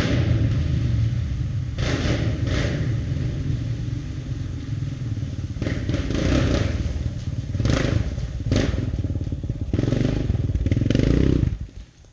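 ATV engine running under throttle, revving up in short bursts about eight times over a steady low rumble, then dropping away sharply near the end.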